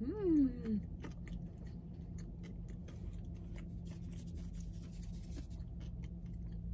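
Close-up chewing of a bacon, egg and cheese biscuit: soft wet mouth clicks. It opens with a short, falling "mmm" of enjoyment, over a steady low hum.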